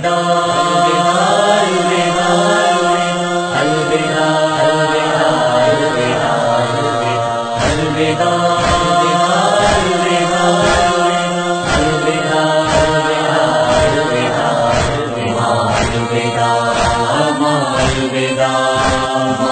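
A noha chanted a cappella by several voices in long drawn-out lines. From about eight seconds in, chest-beating (matam) slaps keep time at roughly three beats every two seconds.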